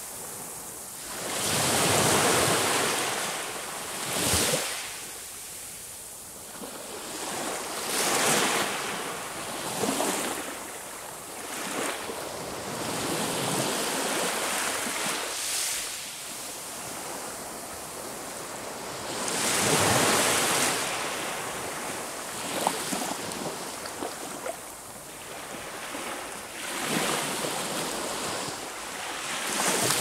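Sea waves breaking and washing up on a shore, swelling into a louder surge every few seconds, with the biggest about two seconds in and about twenty seconds in.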